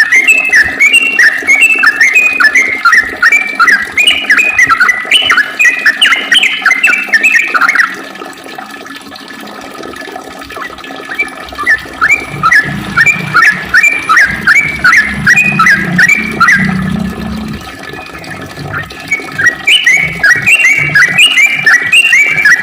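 Yellow-vented bulbul singing a long, fast run of short whistled notes, several a second, in three bouts with brief pauses about eight and eighteen seconds in.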